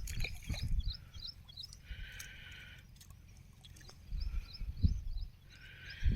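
Outdoor ambience: small birds chirping in quick runs of short high notes, over an irregular low rumble that swells near the end.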